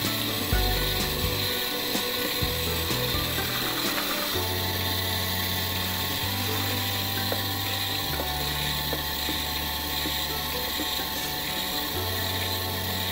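A metallographic sample scraping back and forth on wet silicon carbide grinding paper in a manual hand grinder, over background music with low held notes that change every few seconds.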